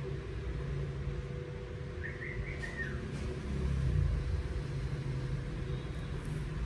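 Low steady background rumble that swells slightly midway, with a faint steady hum and one brief high chirp-like tone about two seconds in.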